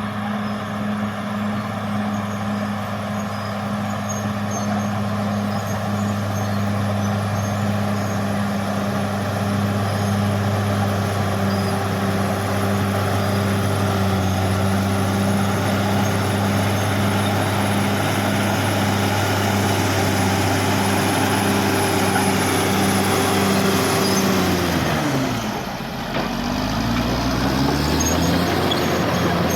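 Caterpillar D6R XL bulldozer's diesel engine running steadily under work. About 25 seconds in, its pitch drops sharply, then climbs back up over the next few seconds.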